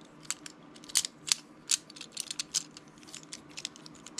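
Infinity cube fidget toy being folded over and over in the hands: its hinged blocks clack together in an irregular string of sharp clicks.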